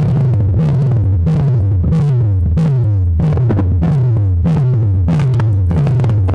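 Loud electronic DJ music on a sound system: a deep bass note that slides down in pitch repeats about every two-thirds of a second, with drum-machine hits above it.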